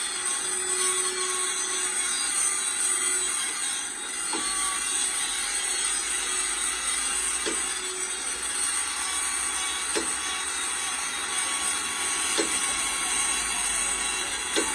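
Steady harsh metalworking noise from truck-frame repair, with a short ringing knock about every two and a half seconds.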